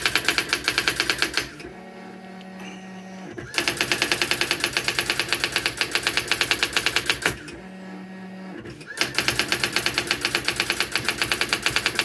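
Brother AX-400 electronic daisy-wheel typewriter printing its built-in self-test in rapid, even strikes. The striking stops twice for about a second and a half, when the carriage motor hums and returns to start the next line.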